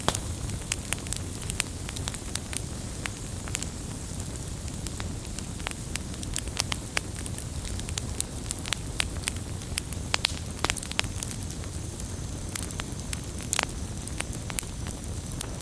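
Wood fire burning, with a steady low rumble of flames and frequent irregular crackles and sharp pops from the burning firewood.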